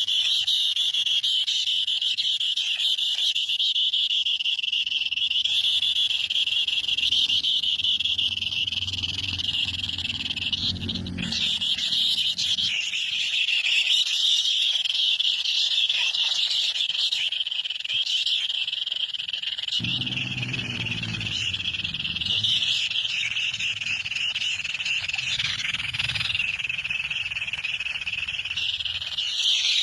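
Dense, continuous chorus of high-pitched animal calls, with a lower pitched sound coming in twice, about eight and twenty seconds in.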